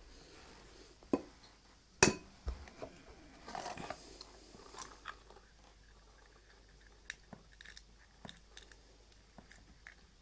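A hen's egg being cracked open. There is a light knock about a second in and a sharp, louder knock about two seconds in, then softer crackling and scattered small clicks and taps.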